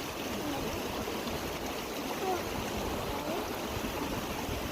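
Mountain stream water flowing steadily.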